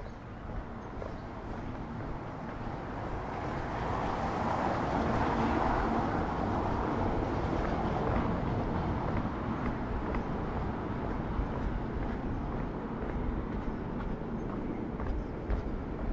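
City street traffic: the steady noise of motor vehicles, swelling as a vehicle passes about four seconds in and then holding as an even rumble.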